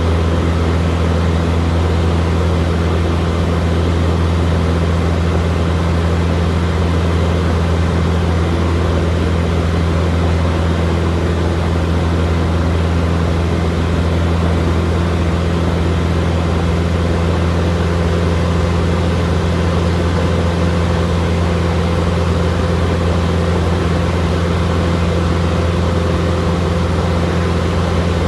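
Light aircraft's piston engine and propeller droning steadily at cruise, heard from inside the cockpit.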